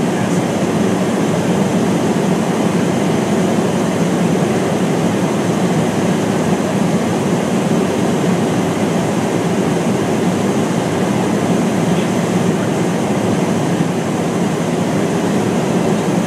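Steady in-flight noise inside a KC-10 tanker at the boom operator's station: an even, deep rush of airflow and engine drone that does not change.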